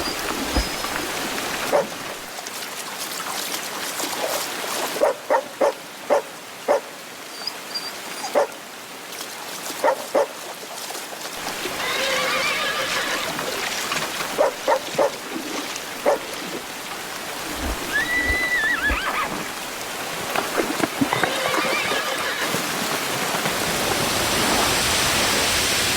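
A horse whinnying several times over steady rain, with runs of short, sharp barks.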